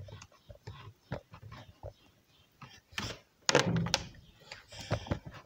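Irregular clicks, knocks and rustles of handling, with a louder cluster about three and a half seconds in.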